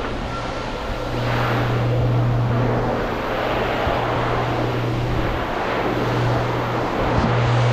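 A vehicle's steady low engine drone under a broad rushing noise.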